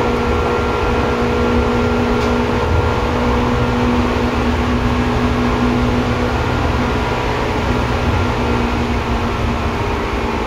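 Seibu 2000 series electric train running between stations: a steady low rumble of wheels on rail, with several steady whining tones from the drive equipment beneath the car floor. There is a faint short tick about two seconds in.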